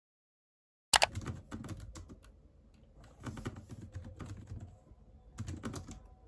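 Typing on a low-profile computer keyboard: irregular runs of quick key clicks that start about a second in, thin out, then pick up again twice.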